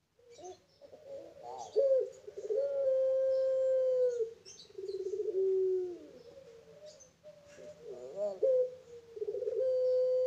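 Puter pelung, a domestic ringneck dove bred for its long coo, cooing. Each coo rises in short notes into one long held note of about two seconds: once about two and a half seconds in, then again near the end, with a lower falling note between them.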